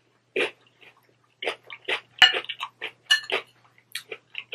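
Metal spoon clinking and scraping against a glass bowl of taco salad, the sharpest clink about two seconds in, among short sounds of close-up chewing.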